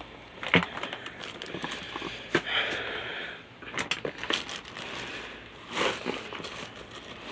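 Plastic trash bags crinkling and rustling as hands dig through them, with a few sharper clicks and knocks among the rustle.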